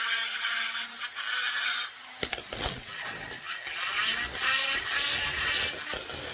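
Rotary grinder running at a steady high whine while porting a chainsaw cylinder. It stops a little over two seconds in, and scraping and handling noises follow.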